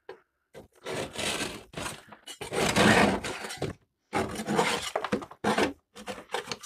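Old, brittle material being scraped and broken away from a car's steel floor pan. It comes as a run of long crackling scrapes, several in a row with short pauses between.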